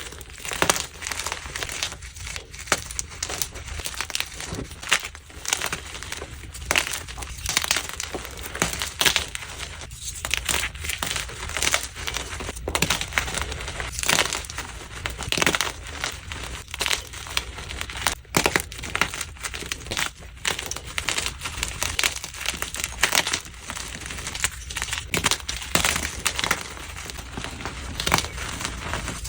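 Blocks of gym chalk being crushed and crumbled, a dense run of irregular crunchy, crispy crackles with sharper snaps now and then.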